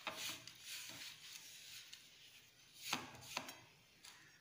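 Hand mixing flour and water into a dough on a plate: quiet rubbing and scraping of fingers through the flour against the plate, with two sharper scrapes close together about three seconds in.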